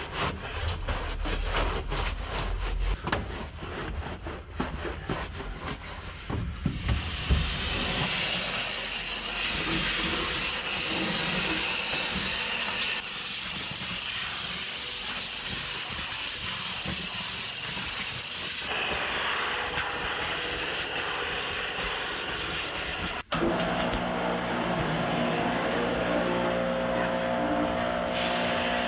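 Cleaning work on an old car's body: rapid rubbing strokes for the first several seconds, then a steady hiss. After a short break about three-quarters of the way in, a motor runs with a steady hum.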